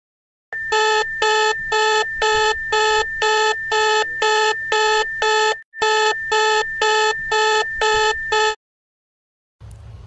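Honduran emergency alert tone: a steady high electronic tone over a beep that pulses about twice a second. It breaks off briefly about halfway through and stops about a second and a half before the end.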